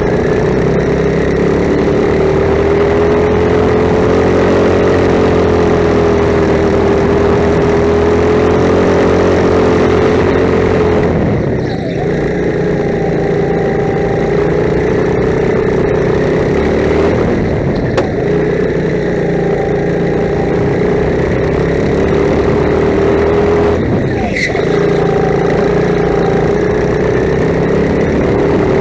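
Rental kart engine heard from the driver's seat, running steadily under throttle with its pitch rising and falling through the lap. The pitch and level dip briefly twice, about twelve and twenty-four seconds in, as the throttle is lifted for corners.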